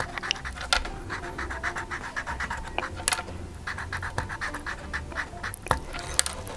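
Felt-tip Crayola marker scratching on a wooden popsicle stick in quick back-and-forth strokes, several a second, as stripes are coloured on, with a few sharper ticks of the tip against the wood.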